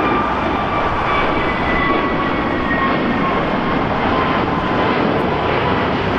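Jet airliner's engines passing close by: a loud, steady rumble with a thin whine that slowly falls in pitch.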